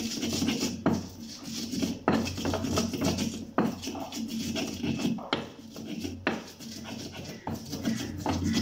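Stone pestle (ulekan) crushing and grinding bird's eye chillies and garlic in a stone mortar (cobek) for sambal: stone scraping on stone, with a sharp knock about every second as the pestle comes down.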